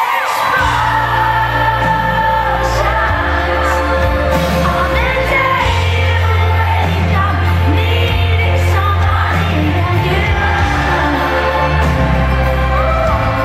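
Live pop song recorded from the crowd: a woman singing into a handheld microphone over a band with keyboards and a deep sustained bass that comes in about half a second in.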